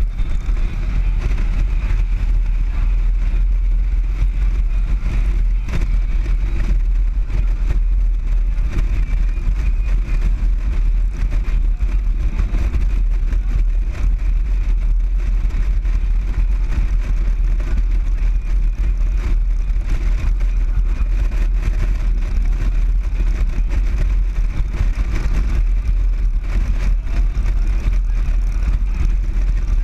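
Motorcycle cruising at a steady road speed: the engine and the rush of riding wind blend into one steady, deep rumble.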